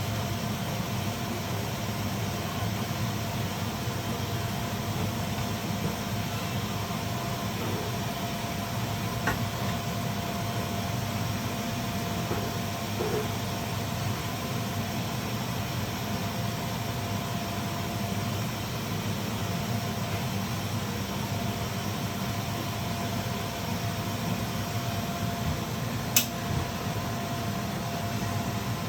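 Steady mechanical hum like a running fan, with a faint constant whine over it. There is a small sharp click about nine seconds in and a louder one near the end.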